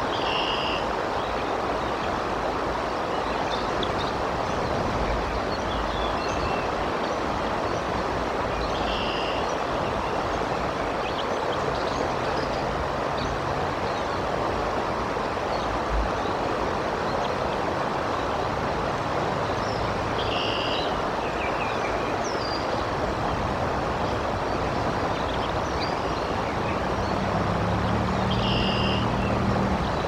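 Steady wind and rain noise with a river's rush beneath it, picked up by a nest cam's outdoor microphone. Short high chirps come about every ten seconds, and a low hum builds near the end.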